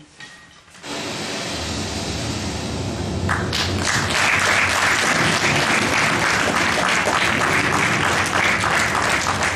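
Audience applauding, starting about a second in and swelling much louder about three seconds in.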